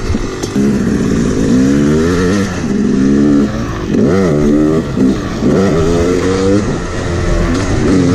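Yamaha YZ250 dirt bike engine under the rider, revving up and backing off repeatedly as it accelerates along a motocross track, its pitch climbing and dropping with each pull of the throttle.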